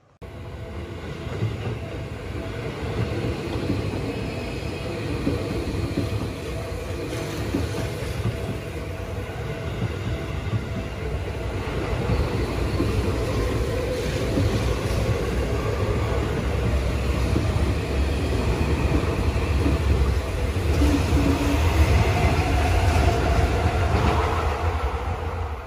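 A train running on rails: a steady rumble with rail noise that grows slowly louder over the stretch.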